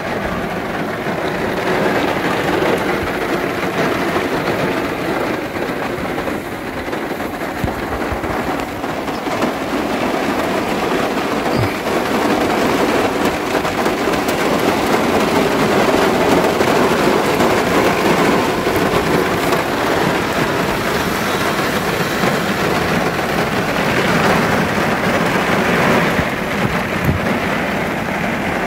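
Heavy rain falling on the metal roof of a Peugeot Partner microcamper van, heard from inside the cabin: a dense, steady patter that grows a little heavier about halfway through.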